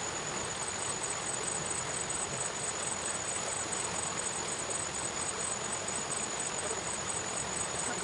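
Insects chirping: a steady high trill with a second chirp pulsing about five times a second, over a steady hiss.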